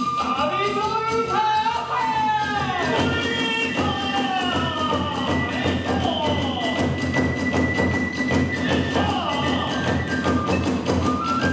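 Kagura hayashi music: a bamboo flute melody, with a long held high note in the middle, over fast, continuous drum and hand-cymbal beats.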